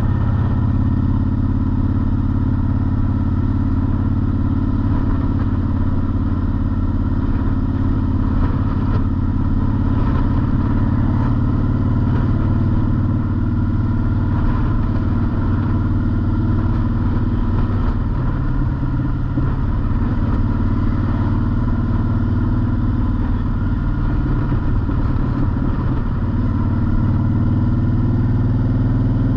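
Honda Shadow motorcycle's V-twin engine running while cruising on the road, easing off for several seconds past the middle and picking up again near the end.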